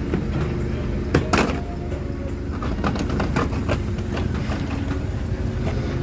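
A Peugeot 207 rolling off a tow truck's steel flatbed ramp. A couple of loud clunks come about a second in as the wheels drop off the ramp, then lighter knocks around three seconds in, all over a steady engine hum.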